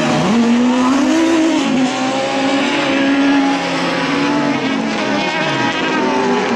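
Several autocross buggies racing on a dirt track. Their engines overlap, each pitch rising and falling as they rev and shift through the corners.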